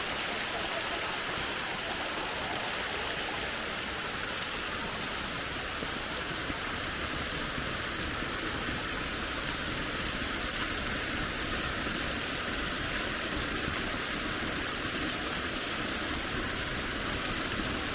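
Waterfall water rushing: a steady, even hiss of falling and splashing water that holds unchanged throughout.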